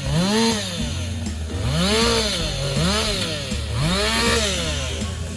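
Stihl two-stroke chainsaw revving up and down repeatedly, its pitch climbing and falling about four times in a few seconds.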